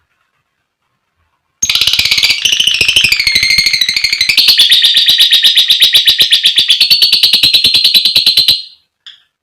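Lovebird giving its long chattering trill (ngekek): a loud, high, rapid run of about ten notes a second, starting about a second and a half in and lasting some seven seconds, wavering in pitch at first and then holding steady, with a single faint note near the end.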